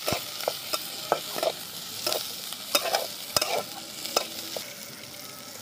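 Flat metal spatula scraping and knocking against a metal karahi in about a dozen irregular strokes while garlic cloves, chopped onion and ginger fry in oil with a steady sizzle underneath.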